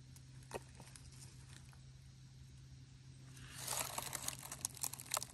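Kitchen knife cutting deep-fried venison heart and tenderloin on a wooden board: a few faint clicks, then a crackly run of cuts starting about three and a half seconds in, over a faint low hum.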